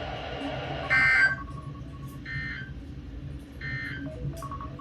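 NOAA Weather Radio Emergency Alert System data tones: three short, buzzy bursts of SAME code about 1.4 s apart, the first the loudest. These are the end-of-message bursts that conclude the Required Weekly Test. Radio hiss runs under the first burst and stops with it.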